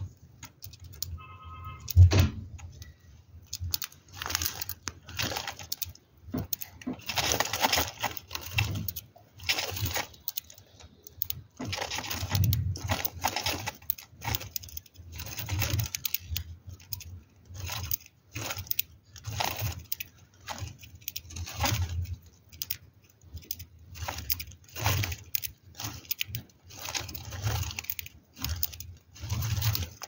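Budgerigar pecking and husking seeds from a millet spray: irregular bursts of crackly crunching and rustling.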